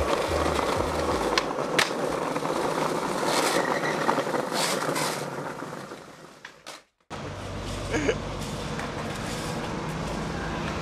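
Skateboard wheels rolling over rough asphalt, with a few sharp clicks from the board, fading out to a moment of silence at about six to seven seconds. Then steady street traffic noise, with a single sharp knock about a second after.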